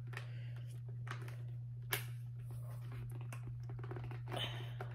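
Football helmet chin strap being fastened on a Schutt Vengeance A11: faint rustling and small clicks of the strap and its snaps against the shell, with one sharper click about two seconds in. A steady low hum runs underneath.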